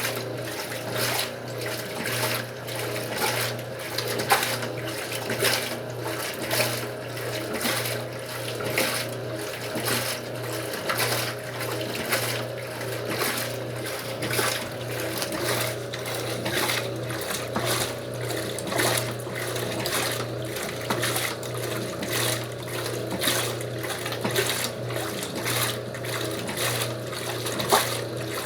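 Old Wanke washing machine running its wash cycle: water and clothes sloshing rhythmically in the tub over a steady low motor hum.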